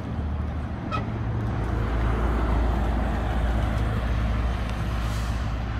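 A motor vehicle's engine running with road noise, a steady low hum that grows louder about two seconds in and eases slightly near the end.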